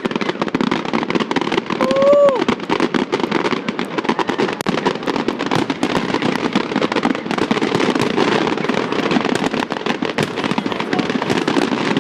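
Fireworks going off in rapid succession: a dense, continuous crackle of many bangs and pops. A short cry rises and falls about two seconds in.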